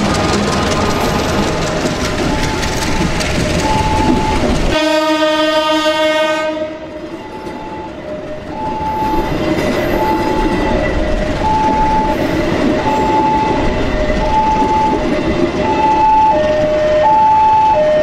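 Diesel locomotive and passenger coaches rolling past close by. About five seconds in, one horn blast lasts around two seconds. After that, the wheels rumble on under a level-crossing warning signal chiming in alternating high and low notes.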